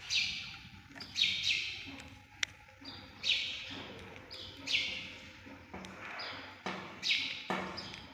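Repeated short rasping scrapes, roughly one a second, of a small screwdriver turning to clamp a wire into a screw terminal.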